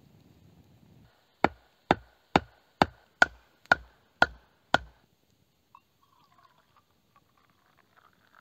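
Eight sharp chopping strikes about two a second, a blade biting into wood, each with a faint ring.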